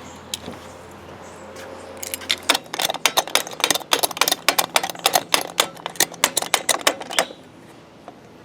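A bunch of keys jangling: a quick, irregular run of small metallic clicks lasting about five seconds, starting about two seconds in. Before the jangling, a low hum stops about two and a half seconds in.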